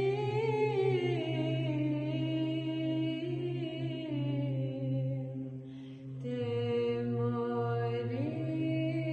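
A woman's voice singing Byzantine chant: a slow, ornamented melody held over a steady low drone (the ison). There is a brief pause about six seconds in, after which the drone settles lower.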